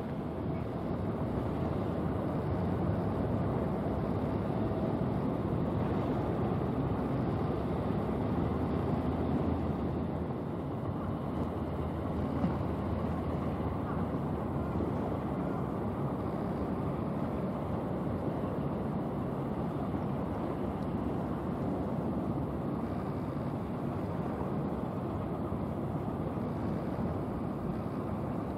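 Steady low rumble of a small general cargo ship passing close by: its engine and the rush of its bow wave.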